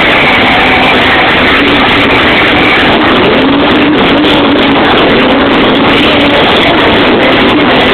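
Live club music played very loud and overloading the recording, so it comes through as a steady distorted roar with a faint wavering melody line running through it.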